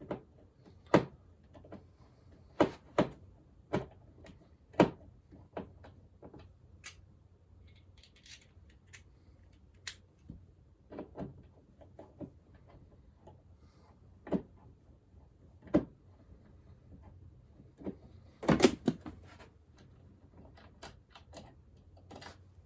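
Irregular clicks and knocks of a screwdriver and the old light switch being handled as the switch is unscrewed and pulled out of its wall box. There is a louder cluster of knocks about three-quarters of the way through.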